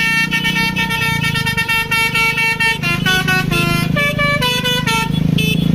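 Bus 'basuri' telolet musical air horn playing a tune, a quick run of notes that steps downward about halfway through, over the bus engine running.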